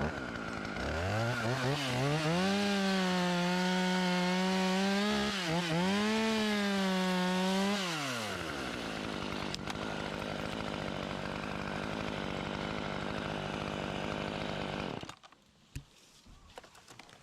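Chainsaw cutting elm wood. It revs up about a second in and runs at high revs through the cut, with a brief dip partway. Near eight seconds it drops back to a lower, steady run, then shuts off.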